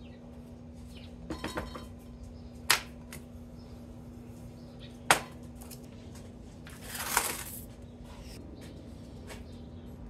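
A few light taps, then two sharp clinks of a container knocked against a glass baking dish as black chip powder is tipped and brushed into it, followed about seven seconds in by a short rustle. A steady low hum runs underneath.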